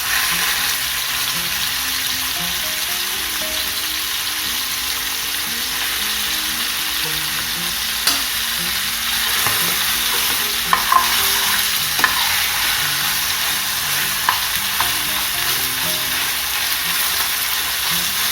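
Masala-coated chicken pieces shallow-frying in hot oil in a pan: a steady sizzle with a few small clicks and pops.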